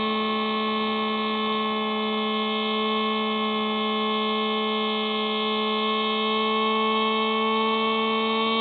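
Electric motor and propeller of a Hubsan Spy Hawk RC plane whining at a steady pitch, picked up close by the plane's onboard camera while it cruises at constant throttle.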